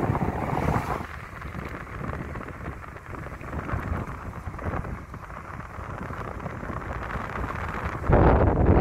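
Road and wind noise of a moving vehicle, with wind hitting the microphone as a steady noisy rush. The noise turns abruptly much louder about eight seconds in.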